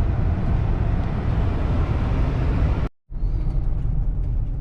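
Car road noise heard from inside the moving vehicle: a steady low rumble that cuts out for an instant about three seconds in and comes back with less hiss.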